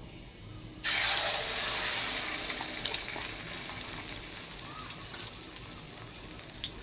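Beaten egg with chopped garlic chives poured into hot lard in an aluminium wok: a sudden loud sizzle starts about a second in and slowly eases off, with scattered pops and spatters.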